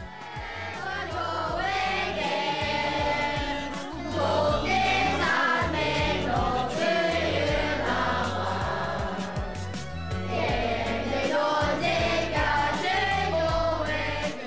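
A children's choir singing a song together, in phrases with a brief dip about four seconds in and again about ten seconds in.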